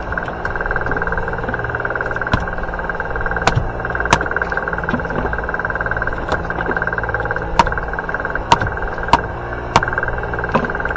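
Boat engine running steadily, with about eight sharp knocks or thuds scattered through it.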